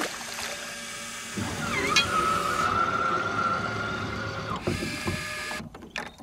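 Fishing reel being wound in: a steady whirring whine that starts about a second in and stops after about three seconds.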